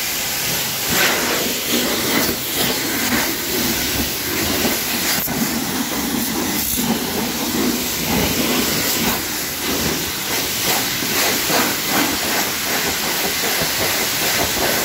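Hose water spraying onto a car's paintwork: a steady hiss of spray and splashing that wavers as the stream moves over the panels, rinsing dirt and road salt off a ceramic-coated finish.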